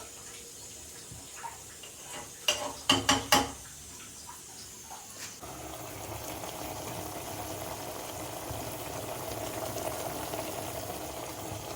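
Kitchen cooking sounds: a few sharp clatters of pot or utensils, then, about five seconds in, a steady rush of water running or being poured.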